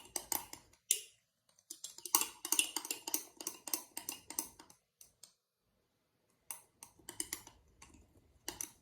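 A utensil stirring slime in a measuring cup, making quick clicks and taps against the cup, with a short pause about five seconds in.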